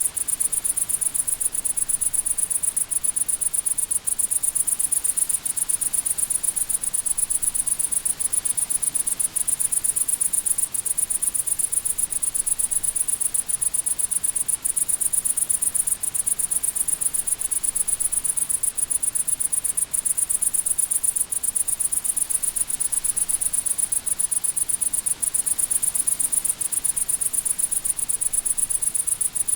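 Crickets chirping in a steady, fast high-pitched trill.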